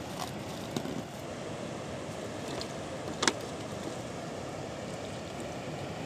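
Steady rush of flowing river water, with a few light knocks and rustles from gear being handled on the inner tubes; one sharper click about three seconds in.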